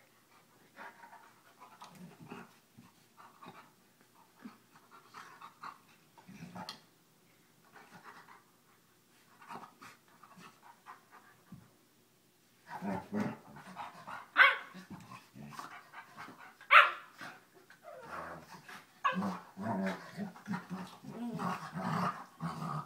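A small puppy and a large adult dog play-wrestling, with panting and faint scuffling for the first half. From about halfway through come louder play growls and two sharp yips, followed by repeated pulsing growls near the end.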